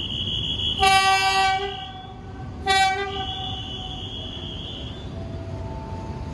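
Train horn sounding two blasts, a longer one of about a second and then a short one, over a steady high-pitched tone and a low rumble.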